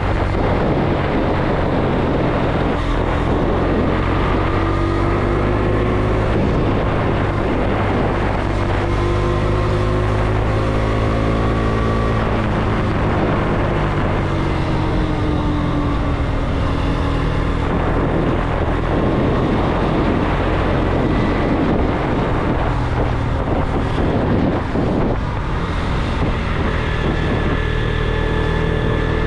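Motorcycle engine running under way, its pitch climbing and dropping back several times as the bike accelerates and slows, with wind rushing over the microphone.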